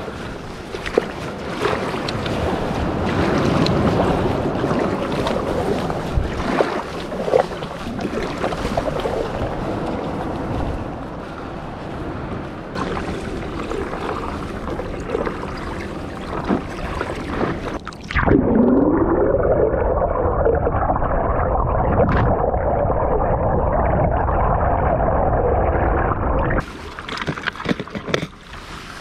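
Paddle strokes and water splashing with wind on the microphone. About two-thirds of the way through, a ScubaJet electric jet motor spins up with a rising whine, runs at a steady pitch, and cuts off near the end.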